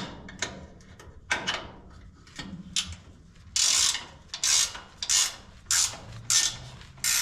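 Hand ratchet wrench turning a bolt on the engine-to-chassis mounts. A few scattered clicks and scrapes, then about halfway through a steady run of short ratcheting strokes, roughly one every half second or so.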